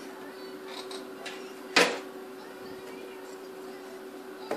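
Plastic parts of a Mercedes W169 instrument cluster being handled as the circuit board is taken out of its housing: a few light clicks, then one sharp clack about two seconds in and another light click near the end.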